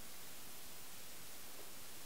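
Steady faint hiss of room tone, with no other sound standing out.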